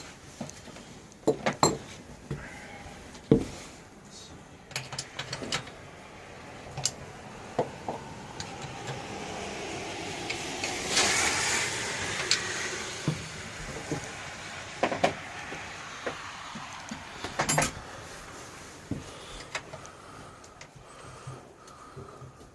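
Metal tools and parts clinking and knocking at irregular intervals while a pocket bike is being taken apart. A rushing noise swells and fades in the middle.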